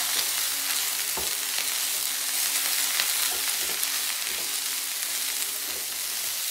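Chicken, broccoli and capsicum stir-frying in a nonstick wok: a steady sizzle, with soft, irregular scrapes and knocks of a silicone spatula as the food is tossed and mixed.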